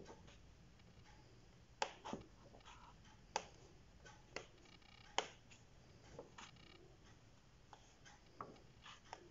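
Pages of a paperback colouring book being turned by hand, each page giving a short, soft paper flick or snap, about one a second.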